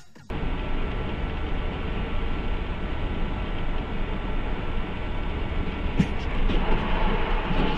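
Dashcam audio from a vehicle driving on a snow-swept road in strong wind: a steady rumble and rush of road and wind noise. There is a sharp knock about six seconds in.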